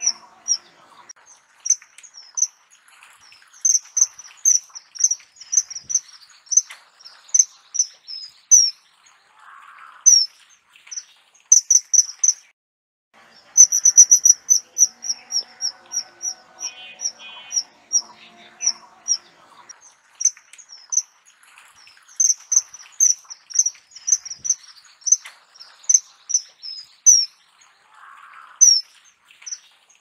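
Common kingfisher calling: short, shrill, high-pitched whistled notes repeated in quick runs of several a second, with short breaks between the runs.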